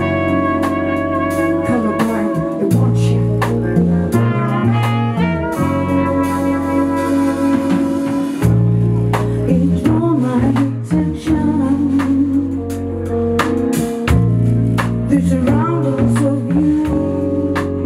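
Live band playing a horn-led tune: trumpet and saxophone play melody lines together over a drum kit and a low bass line, with regular drum hits throughout.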